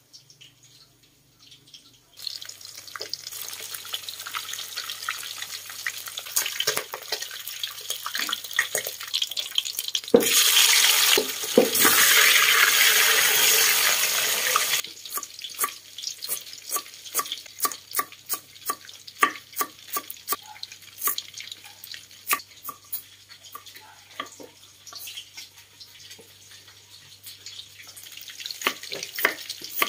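Pieces of fish sizzling in hot oil in a wok, the sizzle loudest from about ten to fifteen seconds in. After that, a knife knocks in separate strokes on a wooden chopping board, slicing ginger, coming faster near the end.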